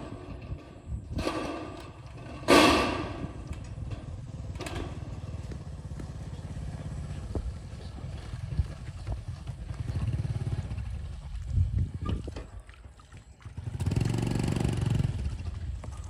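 Corrugated galvanized steel roofing sheets clattering and flexing as they are handled. There are two loud metallic bursts in the first three seconds and a longer one near the end, over a steady low rumble.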